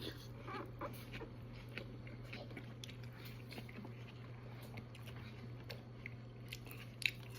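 Close-up mouth sounds of a person chewing food, soft irregular clicks and smacks, with a sharper click about seven seconds in, over a steady low hum.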